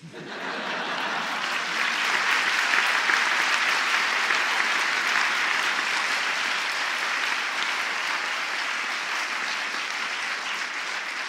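Audience applauding: a steady wash of clapping that swells within the first couple of seconds and begins to fade near the end.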